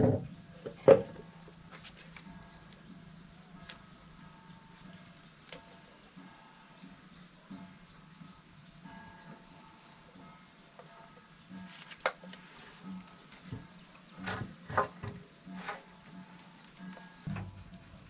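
Steady high-pitched insect chorus. Near the start, two sharp knocks as a wooden beam is set down on a concrete floor. A few lighter knocks and clicks from handling the timber come later.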